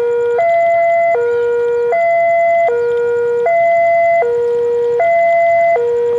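Level-crossing warning alarm sounding a steady two-tone alternation, a higher and a lower tone of about three-quarters of a second each, signalling an approaching train.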